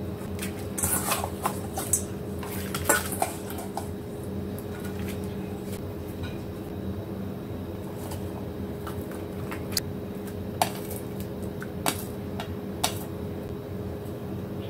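Kitchen handling sounds: a stainless steel bowl and a frying pan clinking and knocking as fish are moved onto a banana leaf, busiest in the first few seconds, then a few single sharp clicks as sliced onion and ginger go in from a plate.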